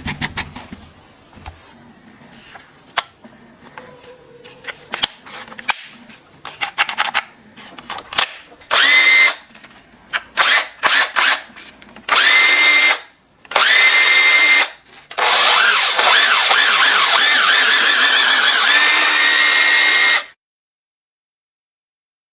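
Makita TW122D cordless electric screwdriver with small handling clicks and knocks at first. Its motor then runs in a series of short trigger bursts and finishes with one longer run of about five seconds with a steady high whine, cutting off abruptly.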